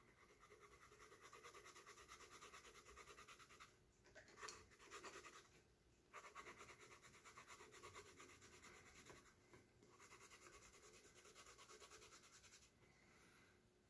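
Faint scratching of a colored pencil shading on sketchbook paper: quick back-and-forth strokes, several a second, in runs broken by short pauses.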